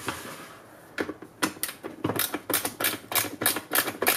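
Screwdriver backing a screw out of a plastic battery compartment, a quick regular clicking about five times a second that starts about a second in.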